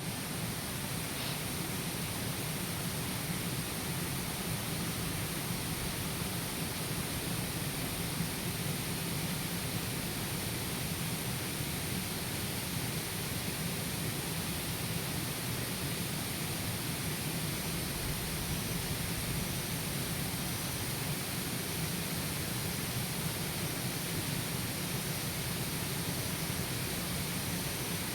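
Steady outdoor nature ambience: an even rushing hiss with no break. Faint short high chirps come now and then in the second half.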